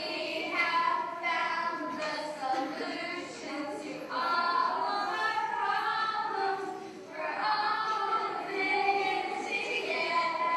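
A group of children singing together in a large hall, with long held notes and brief breaks between phrases.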